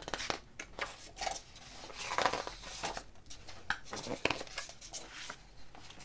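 Pages of a hardcover picture book being opened and turned by hand: a run of short paper rustles and rubs.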